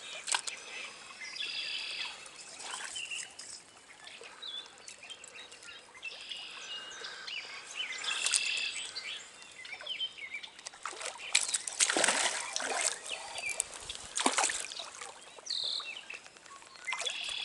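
Songbirds singing and chirping in short repeated phrases over the steady trickle of a trout stream. A few louder splashing sounds come in the last third.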